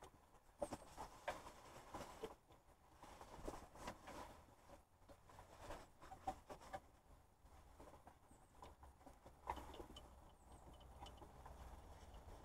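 Faint, scattered taps and rustles of a hand and sleeve working a new serpentine belt onto the engine pulleys, just above near silence.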